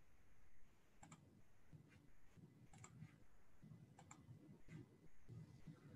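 A few faint, separate clicks of a computer mouse, irregularly spaced, against a near-silent room.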